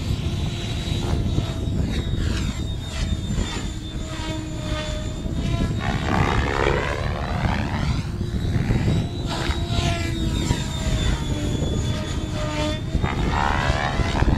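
Radio-controlled model helicopter flying aerobatic maneuvers overhead: a steady rotor and motor whine whose pitch shifts up and down. Several sweeping whooshes come as it turns and changes distance.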